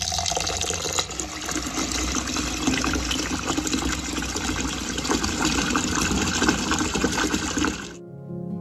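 Tap water gushing in a steady stream into a bowl of uncooked long-grain rice, filling it to wash and soak the rice. The flow cuts off suddenly near the end.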